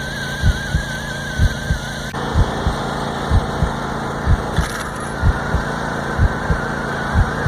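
John Deere E180 garden tractor's 25-horsepower engine running under load. A regular low thump sounds about once or twice a second, and a wavering whine rides over it.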